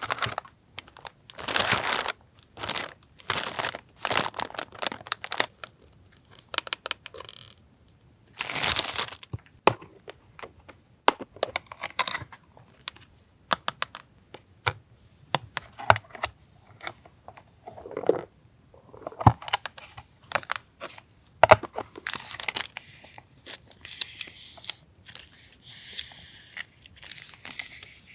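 Paper and plastic packaging of sticker and masking-tape goods being handled and unwrapped: a run of short crinkling rustles and sharp taps, then a more continuous crinkly rustling near the end.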